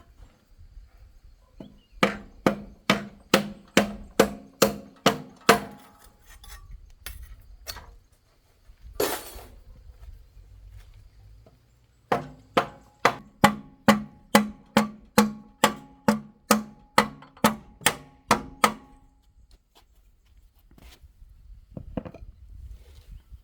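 A hammer striking metal repeatedly, about three blows a second, each blow ringing; two runs of blows with a pause between them and a short scrape in the pause.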